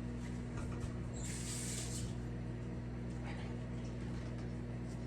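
Steady low electrical hum with a few light clicks, and a short high hiss about a second in.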